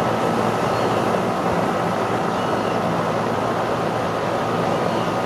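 A loud, steady whooshing hum with faint steady tones running through it, like a machine or fan running.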